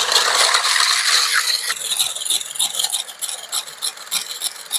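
Electric hand mixer beating egg whites in a tall container, the whisks rattling and scraping against the sides. It gets quieter about two seconds in as the whites are taken to soft, half-stiff peaks.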